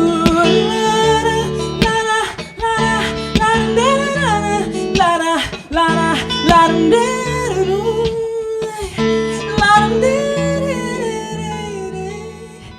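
Acoustic guitar played percussively, with sharp strums and slaps, under a woman's singing voice with sliding notes. The playing eases off in loudness near the end.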